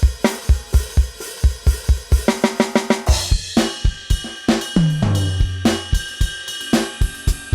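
Turbo Eletronic TDX-16 electronic drum kit played in a groove of kick, snare and hi-hat, with cymbal crashes and tom fills that step down in pitch from tom to tom.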